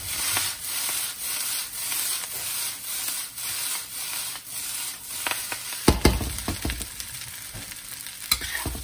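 Fried rice with bok choy and carrots sizzling in a steel wok while it is tossed and stirred, with repeated scrapes of the spatula. There are a few sharp knocks as the wok is set back on the cooktop, the loudest about six seconds in.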